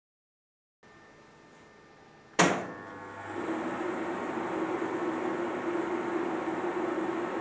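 LGP-30 vacuum-tube computer powering up: a single sharp switch click about two and a half seconds in, then its motors start and settle into a steady whirring hum with one steady tone in it.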